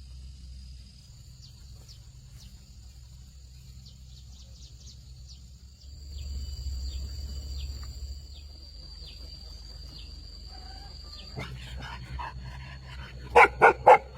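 Steady high-pitched insect buzzing over a low rumble, then a dog barks three times in quick succession near the end.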